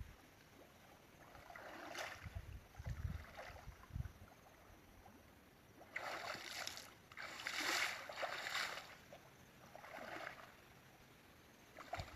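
Faint water splashing and sloshing in a few short bursts, with soft low thumps early on.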